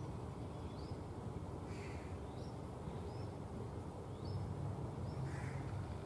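Birds calling outdoors: short rising high chirps repeat every second or less, and two brief harsh, crow-like calls come about two and five seconds in, over a steady low rumble.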